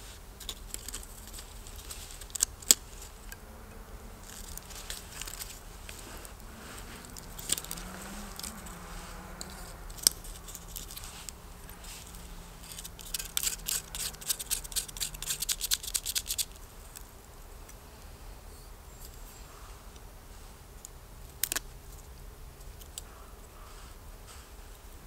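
Steel striker scraped down against flint to throw sparks for lighting a fire: scattered sharp clicks, then a fast run of strikes lasting a few seconds about halfway through, and a last single click near the end.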